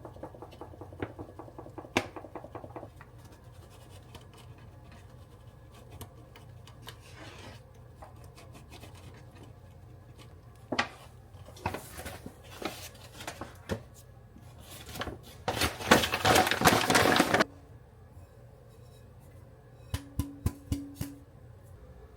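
Kitchen storage canisters being wiped dry inside by hand: bursts of rubbing and scraping with knocks and clinks as the containers are handled. The longest, loudest stretch of rubbing comes a little past the middle.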